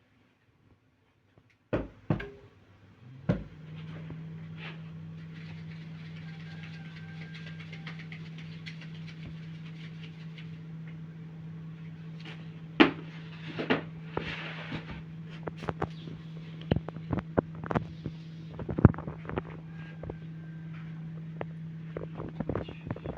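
A few sharp knocks, then a steady low mechanical hum that starts about three seconds in and keeps going, with irregular clicks and knocks over it.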